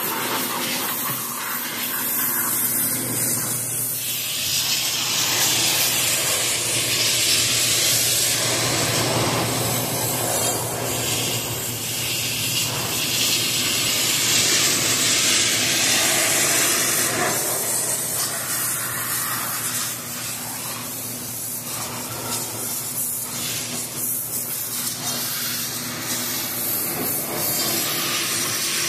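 Steady spraying hiss, loud and continuous, with a low steady hum beneath it.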